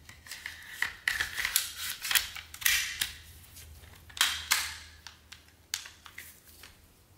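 Metal rifle parts scraping and clicking as a Geissele charging handle is slid along a Sig MCX Rattler's upper receiver to its cutout and the action is put back together. Sharp clicks and short sliding rasps come in quick succession, thickest between about one and three seconds in, with two more just after four seconds.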